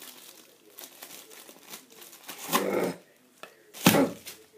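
Plastic packaging crinkling and rustling as it is pulled open by hand. A short louder voice-like noise comes a little past halfway, and a loud sudden burst near the end.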